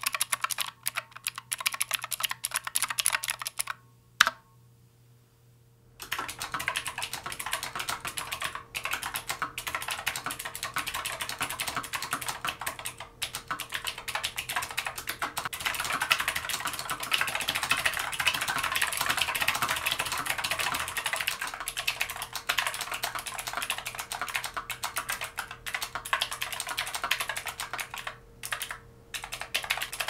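Fast, continuous typing on an IQUNIX M80 Purry Cat wireless mechanical keyboard, a dense run of key clacks. About four seconds in, the typing stops with one sharp click. After a short pause of near silence it picks up again and runs on steadily.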